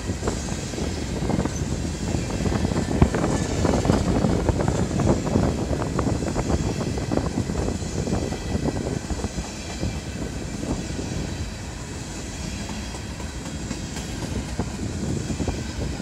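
Empty coal hopper cars of a long freight train rolling past at close range, a steady rumble with the wheels clicking and clacking over the rails.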